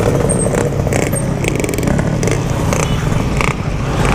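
Yamaha RX-King 135 cc two-stroke motorcycle engine running under way, with short sharp crackles several times.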